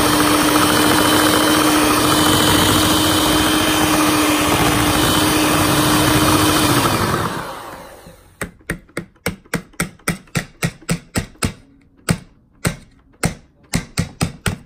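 Electric hand mixer whipping shea butter cream in a stainless steel bowl: a steady motor whine that drops in pitch and dies away about seven seconds in as the mixer is switched off. It is followed by a quick run of sharp metallic taps, about three a second, of the beaters knocking against the steel bowl.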